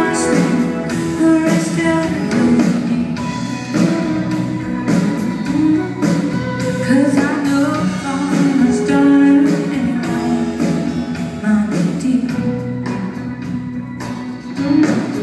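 Live band playing a rock song: a woman sings lead over acoustic and electric guitars, keyboard and drums keeping a steady beat.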